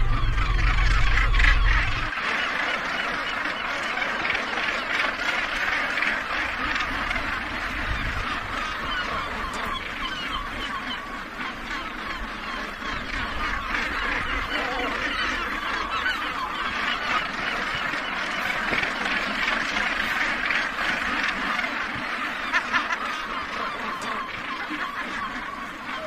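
A huge colony of northern gannets calling, a continuous chorus of harsh, overlapping cries. A boat engine's low rumble sits under it and stops about two seconds in.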